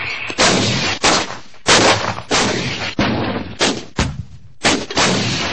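Artillery guns (howitzers) firing in quick succession: a series of sharp blasts, each dying away in a rumbling tail, with two pairs of shots fired close together.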